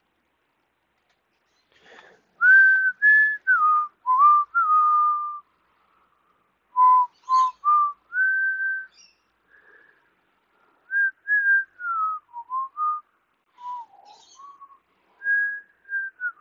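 A person whistling a slow tune: held single notes that slide up and down, in several short phrases with pauses between them, starting about two seconds in.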